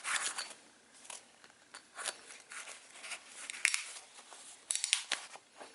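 Rustling and irregular light clicks from a ratcheting belt being handled close to the microphone, with a quick run of several clicks near the end.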